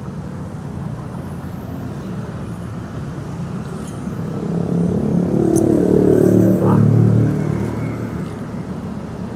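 Road traffic rumble, swelling as a motor vehicle passes about halfway through, then fading back to the steady background.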